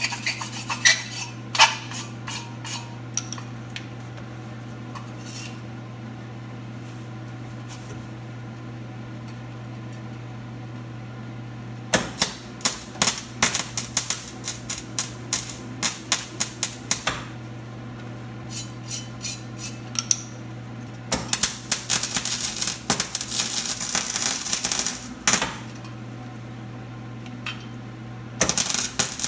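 Wire-feed (MIG) welder arcing in several short bursts of sputtering crackle a few seconds long, over a steady low hum. The welder is turned all the way down and is still burning holes through the thin metal being tacked.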